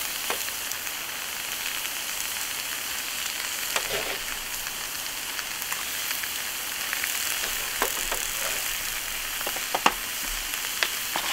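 Vegetables sizzling on a hot propane flat-top griddle: a steady frying hiss from broccoli, cauliflower rice, greens and onions, with a few light sharp clicks scattered through it.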